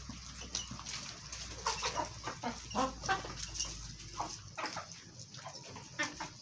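Domestic chickens clucking, many short calls overlapping at irregular intervals.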